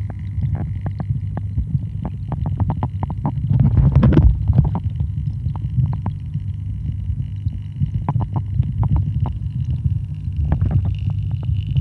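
Muffled low rumble of moving pond water heard through an underwater camera, with many small clicks and taps and a louder rushing surge about four seconds in.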